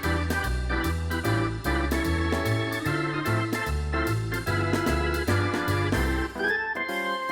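Background music: an upbeat keyboard tune with a bouncing bass line and a steady beat.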